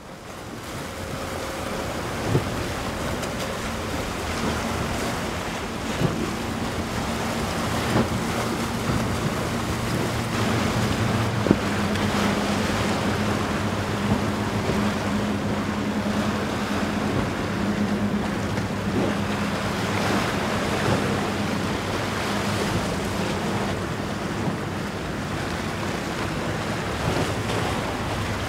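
Wind buffeting the microphone over the noise of churning water and waves. A low, steady boat engine drone runs under it and fades out toward the end, with a few brief knocks along the way.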